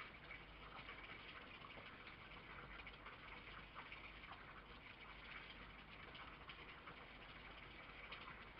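Near silence: a faint, steady hiss of background noise with scattered faint ticks.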